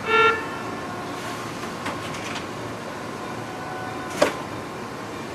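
Commuter train's horn giving one short, high toot at the start, then the steady noise of the train rolling slowly through the depot, with a sharp clack a little after four seconds in.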